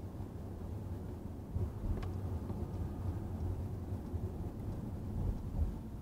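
Low, steady road and engine rumble inside a moving Mercedes-Benz car's cabin, picked up by a dashcam, with a single click about two seconds in.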